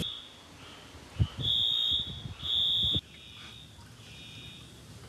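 An electronic alarm beeping: a high tone repeated in beeps of about half a second, loudest in the middle, with a low thump about a second in.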